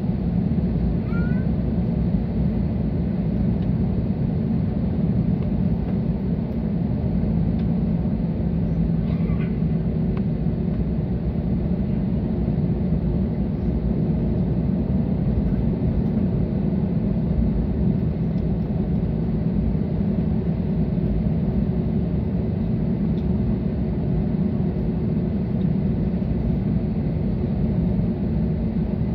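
Steady low rumble inside the cabin of an Airbus A320 taxiing on its CFM56 engines, with a faint steady hum over it and no change in engine power.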